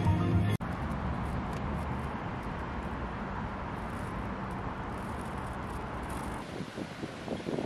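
Steady road traffic noise from cars on a busy roundabout, which fades away about six seconds in. Background music cuts off suddenly just after the start.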